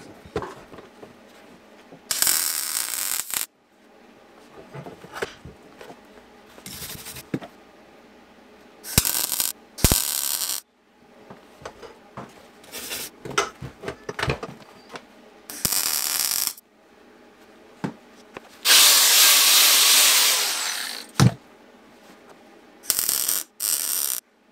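MIG welder laying tack welds on a steel exhaust pipe: several short crackling bursts of arc, the longest and loudest about two seconds, with light clicks and knocks of handling between them.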